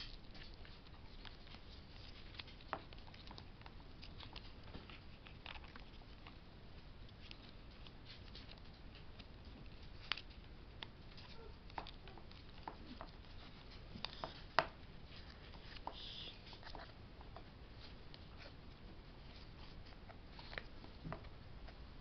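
Faint, scattered clicks and taps of hard plastic parts being handled, as a small action camera is fitted to a plastic headband mount, with the sharpest clicks about ten seconds in and again a few seconds later.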